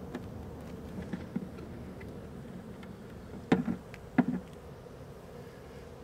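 Honey bees buzzing steadily around their disturbed colony, torn out of a truck's wheel well. Two sharp knocks, less than a second apart a little past halfway, each with a short rattle after it, stand out over the buzzing.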